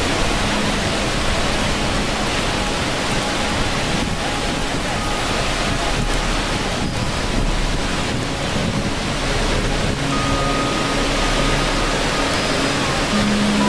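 Steady, even rush of water noise, with soft held music notes faintly underneath; a couple of new tones come in near the end.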